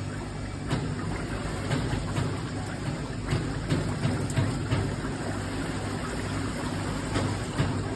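Shower head running: a steady spray of water with a low hum underneath and scattered light clicks.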